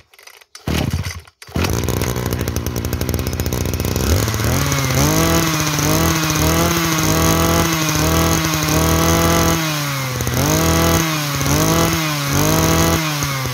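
26cc two-stroke brush cutter engine starting up, catching about a second and a half in and idling. It is then revved and held high for several seconds, drops back, and is blipped up and down a few more times near the end.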